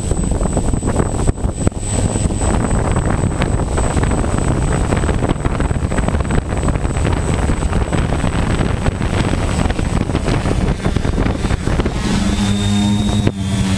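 Quadcopter's electric motors and propellers running close to the ground, their prop wash buffeting the onboard GoPro's microphone with a loud rushing noise. About twelve seconds in, a steady propeller hum with several tones comes through the rush.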